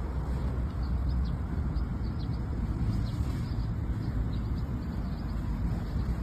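Cargo motor tricycle running steadily as it drives down a steep slope: a low, even rumble.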